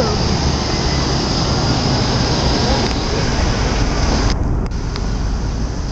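Thunder rolling as a long, continuous low rumble over a steady hiss.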